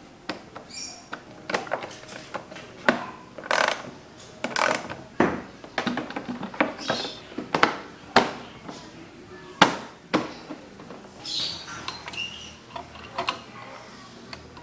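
Hand tools and hard plastic parts clicking and knocking as a smoke windscreen visor and the front fairing are fitted on a Honda PCX 160 scooter: screws and a small tool worked at the visor mounts and plastic panels snapped into place. Irregular sharp clicks and knocks, a few each second, one of the loudest about ten seconds in.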